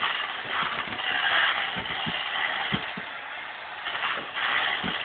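Power drill running in several short bursts, churning boiled potatoes into mash.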